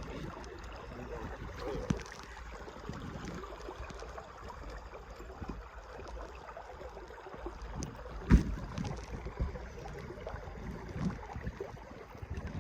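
Steady rush of a flowing trout stream with wind noise on the microphone, broken by a few low bumps, the loudest about eight seconds in.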